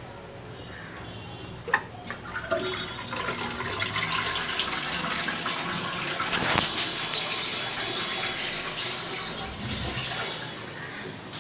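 Toilet flush tank flushing: a sharp click, then water rushing out for about seven seconds before tapering off.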